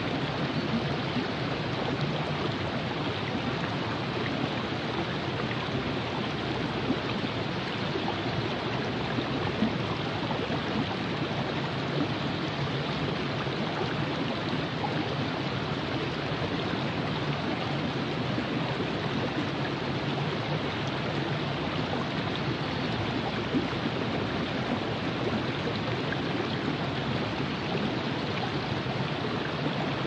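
The Virgin River flowing: a steady, even rush of running water.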